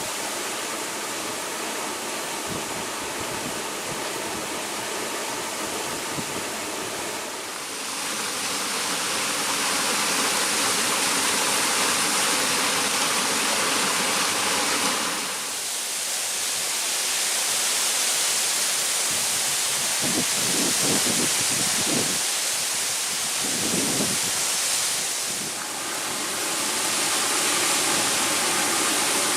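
Typhoon rainstorm: heavy rain and wind making a dense, steady rushing noise that grows louder about eight seconds in, with a few low rumbling gusts past the middle.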